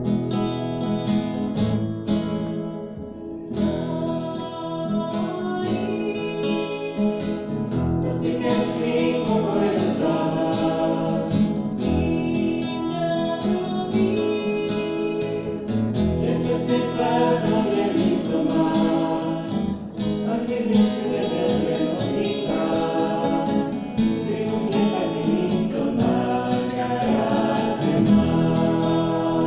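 A church choir singing a Czech worship song, accompanied by strummed acoustic guitar; the voices come in strongly about eight seconds in.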